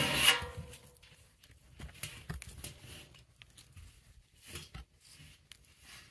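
An Angora goat gives one short bleat right at the start. Soft scuffing, rustling and a few light taps follow as the goats shift about in the dirt around the steel barrel.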